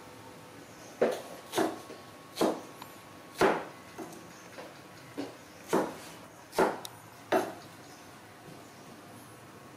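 A plastic toy dump truck knocked about by a baby macaque: about ten sharp clacks and knocks at uneven intervals over some six seconds, the loudest two near the start.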